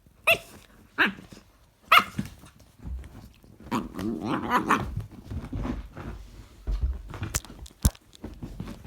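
Cane corso puppy barking three times about a second apart, then a longer, lower vocal sound from the dog, followed by a couple of sharp knocks near the end.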